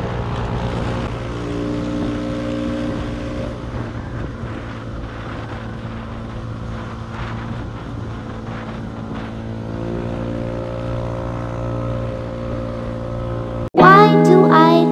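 Motor scooter engine running steadily under way, with wind rushing on the microphone. Near the end it cuts off abruptly and music with singing starts.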